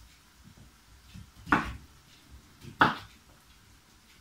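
Kitchen knife chopping through squash onto a wooden cutting board: two sharp chops about a second apart.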